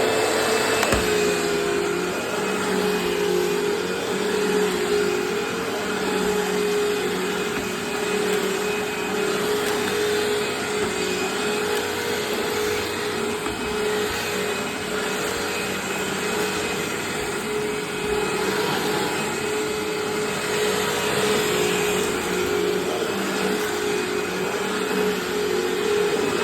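Eureka Maxima 4700D 12-amp upright vacuum cleaner running steadily with an even motor hum.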